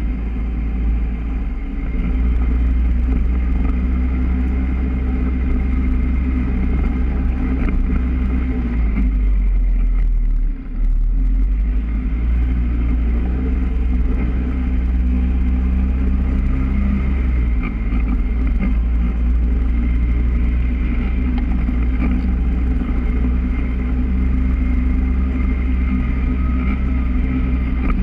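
Polaris ATV engine running steadily under way, heard close from its front rack, with a heavy low rumble. The sound dips briefly about ten seconds in, then carries on.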